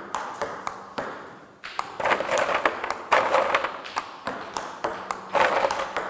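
Table tennis rally: a ping-pong ball clicking sharply off rubber bats and the table in a steady back-and-forth rhythm as forehand loops are played against a coach's feeds.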